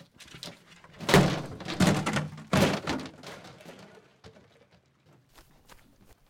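Plastic fish crates being dropped and stacked: three loud, hollow thuds in the first three seconds, then a few quieter knocks.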